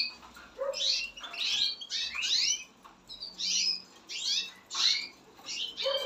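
Caged finches chirping and singing: a string of short, quick notes sliding in pitch, in small groups every half second or so.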